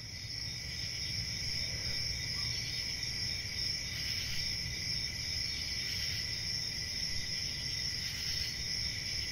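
Crickets chirping in a steady, high, unbroken drone that starts abruptly, in the manner of the edited-in 'crickets' sound effect for an awkward silence.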